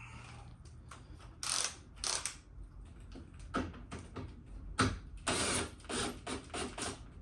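Irregular clicks, knocks and scrapes of a plastic front bumper cover being worked by hand against the headlight and its mounting clips, with a longer scrape about five seconds in.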